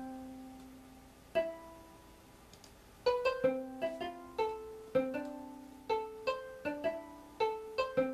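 Computer-sequenced electronic music: synthesized plucked-string-like notes playing a repeating pattern, with about half the notes of the first voice randomly dropped by a note-density setting. A few separate notes ring and fade at first, then from about three seconds in the notes come quickly, several a second, at changing pitches.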